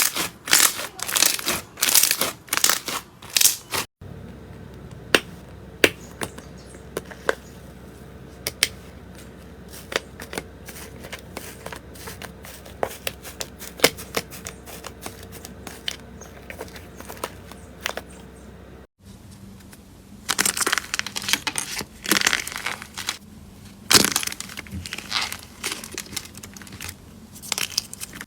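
Slime being pressed and squeezed by hand, giving runs of sharp crackling and popping. In the long middle stretch only scattered pops come, over a faint steady hum.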